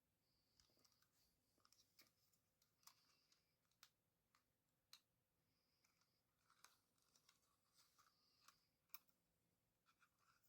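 Very faint, scattered clicks and short light scrapes of small tools and plastic drone parts being handled during reassembly.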